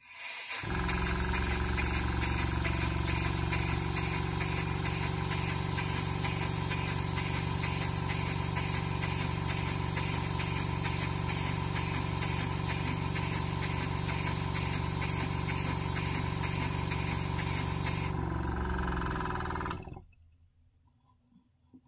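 Model horizontal steam engine running fast and steadily: a continuous hum with a rapid, even beat. It winds down and stops about twenty seconds in.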